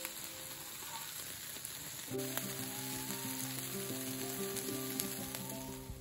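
Bacon sizzling on a portable gas stove's griddle plate: a steady hiss with a few sharp clicks. Soft background music with sustained notes comes in about two seconds in.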